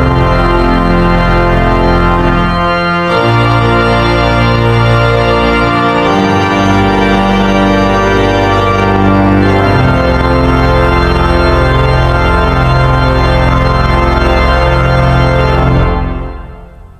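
Organ music playing slow, held chords that change every second or two, fading out near the end.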